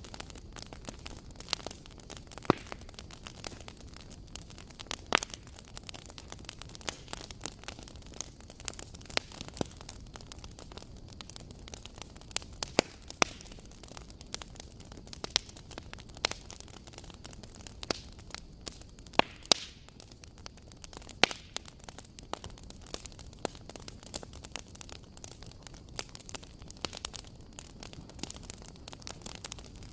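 Campfire burning: a steady low rustle and hiss with sharp crackles and pops at irregular intervals, a few every couple of seconds.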